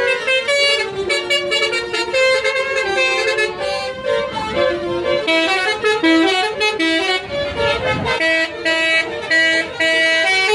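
Tour bus 'telolet Basuri' musical horn playing a melody of quick stepped notes.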